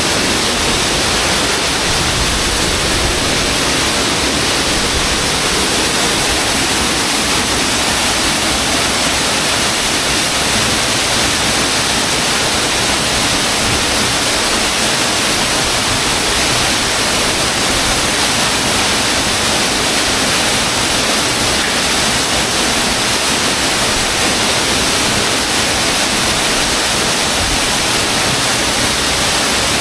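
Waterfall inside a cave, swollen by heavy rain, gushing with a steady, loud rush of falling water.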